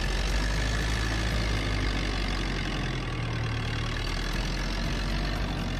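Engine of an old rough-terrain forklift with a telescopic boom, running steadily as the machine drives along.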